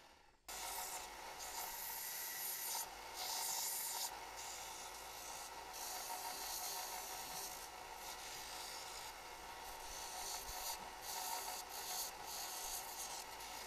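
Small bench belt sander running with a plum-wood needle blank pressed against the belt: a steady abrasive rasping that swells and eases as the wood is pushed on and lifted off. It starts abruptly about half a second in.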